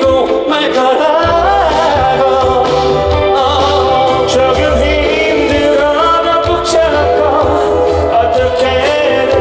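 Live pop song with male singing over an amplified backing track; the bass and beat come in strongly about a second in.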